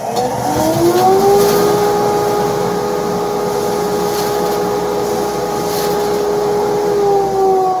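Small benchtop wood lathe's motor spinning up to speed with a rising whine, running steadily for several seconds, then starting to wind down near the end.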